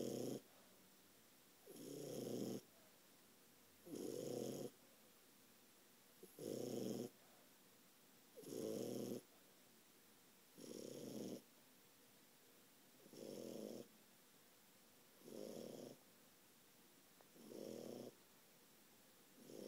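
French bulldog puppy snoring in its sleep, one even snore about every two seconds.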